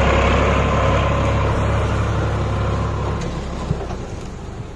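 Heavy diesel engine running steadily, its low note dropping away and fading from about three seconds in.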